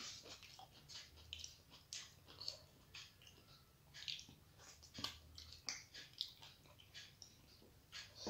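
Faint eating sounds from someone eating rice and dal by hand: short wet mouth clicks and smacks, several a second, as the fingers go to the mouth and the mouth chews.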